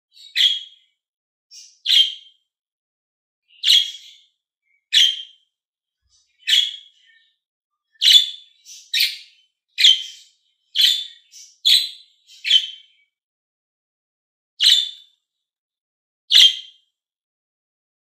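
Budgerigars calling: a series of short, high chirps, each alike, about one a second, with a longer pause near the end.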